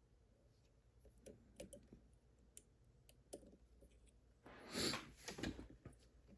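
Faint small metal clicks and scratches of a lock pick and tensioner working inside an Evva DPI padlock, with a louder short rustle about five seconds in.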